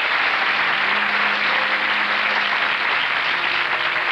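Studio audience applauding steadily, while a piano starts to play a few soft held notes underneath.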